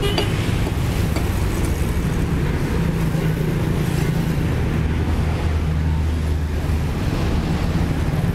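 Diesel truck engine running steadily, a low drone that swells in the lower range for a couple of seconds past the middle.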